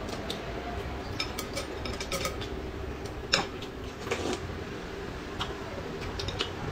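Chopsticks clicking against ceramic noodle bowls as noodles are eaten, a scatter of short light clinks with one sharper knock about three and a half seconds in, over a low steady hum.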